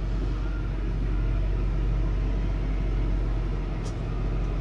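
Snobear tracked vehicle's engine idling, a steady low drone heard from inside its cabin.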